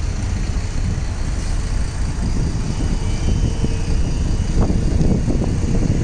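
Translohr STE6 rubber-tyred tram passing close by, a steady rumble from its tyres and running gear. A faint whine comes in about halfway through.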